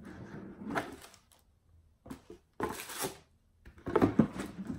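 Hands handling packaging: three short bursts of rustling and knocking, each a second or less.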